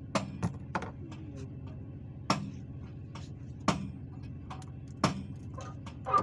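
Sharp metallic clinks of hand tools, three close together at first and then single strikes about a second and a half apart, as bolts are worked on a truck's air brake booster. A steady low hum runs underneath.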